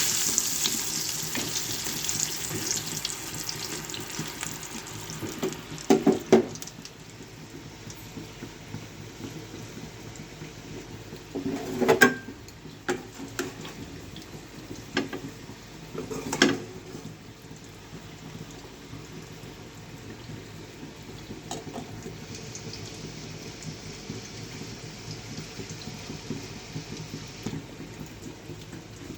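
Kitchen cooking sounds: a hiss that is loudest at the start and fades to a steady lower level, with a few sharp clanks of a utensil on cookware.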